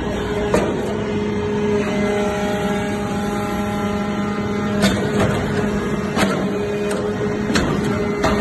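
Hydraulic metal chip baler running: a steady machine hum from the pump and motor, with several sharp metallic clanks spaced a second or more apart.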